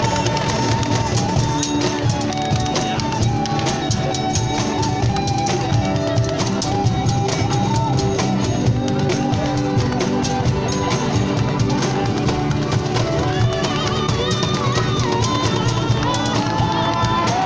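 Large busking ensemble playing folk-rock together: strummed acoustic and electric guitars, fiddles and accordion over cajón box-drum percussion with a steady beat.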